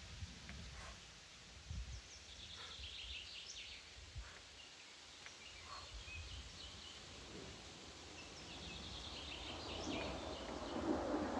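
Faint forest ambience with small birds singing short high trills twice, and a few soft knocks. A rising rush of noise comes in near the end.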